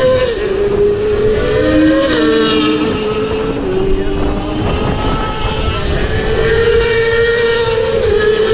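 Racing motorcycles passing at speed at high revs. The engine pitch falls as one bike goes by right at the start, then steps through gear changes, and more bikes approach near the end.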